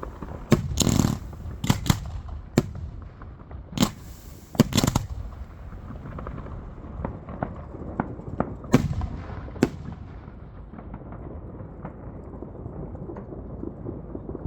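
Fireworks going off: a run of sharp, irregular bangs over the first five seconds, two more about nine and ten seconds in, then a quieter crackle and rumble.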